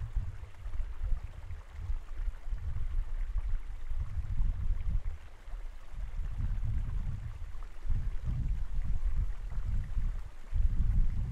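Wind buffeting a microphone: an uneven low rumble that rises and falls in gusts, dropping away briefly near the end.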